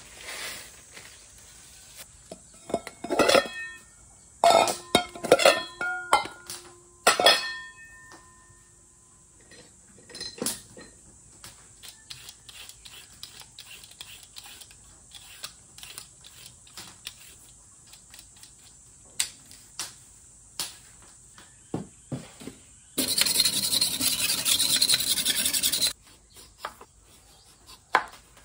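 Stainless steel bowls clank and ring against the tiled counter for several seconds. A vegetable peeler then scrapes down a carrot in short, quick strokes. Near the end comes about three seconds of a loud, steady rushing noise, followed by a few light knife cuts through the carrot on a wooden board.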